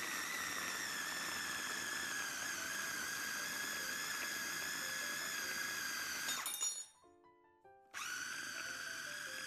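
Mitochiba MITO CH 100 electric food chopper running with a steady high whine as it minces raw beef and chicken to a paste. It stops about six and a half seconds in and starts again a second later, slightly lower in pitch.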